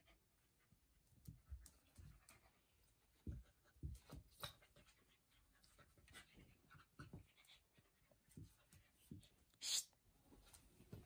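A Havanese puppy and a Maltese play-fighting on a tile floor: faint scuffling, soft thumps and paw and claw clicks on the tiles, with some dog panting. A brief sharp sound near the end is the loudest moment.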